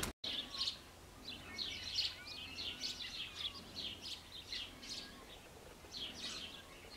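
Small birds chirping, many short calls in quick succession, with a couple of longer gliding whistled notes about two seconds in.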